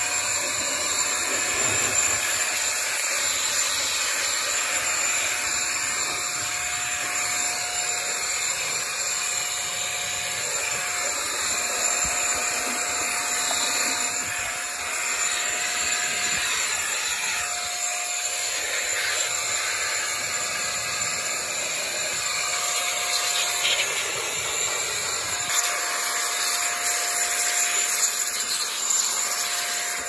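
ATEnge TAD07 electric air duster running continuously, its fan giving a steady rush of air with a thin, steady motor whine, a sound comparable to a hair dryer. The whine drops out briefly twice, about halfway through and again a few seconds later.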